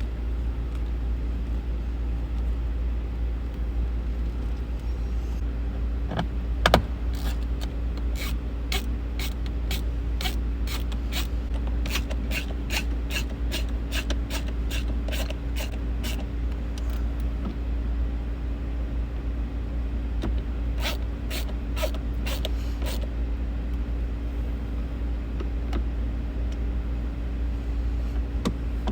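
A speaker being screwed into place with a Torx driver: a knock, then runs of sharp, even clicks at about two a second as the screws are turned in. A steady low hum runs underneath.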